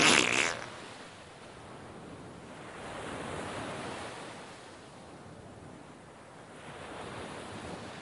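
Sea surf washing on a rocky shore with wind, swelling about three seconds in and again near the end. It opens with a brief, loud rustling burst, much the loudest sound here.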